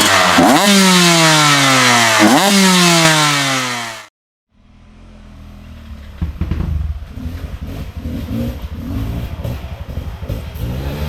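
Dirt bike engine revved hard twice, each rev sweeping up sharply and falling away slowly. The sound cuts off abruptly about four seconds in, then an engine runs lower and quieter, its revs rising and falling.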